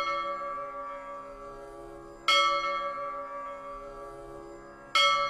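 A bell struck twice, about two and a half seconds apart, each stroke ringing on and slowly fading; the ring of an earlier stroke is still fading as it begins.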